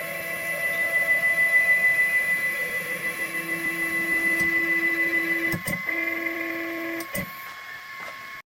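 Stepper motors of an AnoleX 3030-Evo Max CNC router whining steadily as the machine runs its homing cycle. The pitch shifts as the motion changes, with a few short clicks about five and a half and seven seconds in. It cuts off suddenly near the end.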